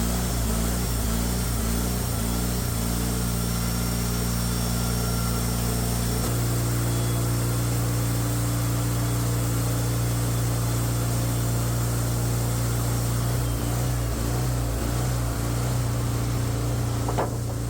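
Sawmill engine running steadily under load while the saw cuts through a poplar log; the engine note shifts about six seconds in and then holds steady.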